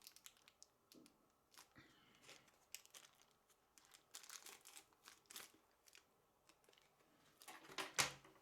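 Faint rustling and crinkling of plastic packaging being handled in short scattered bursts, with a louder crinkle near the end.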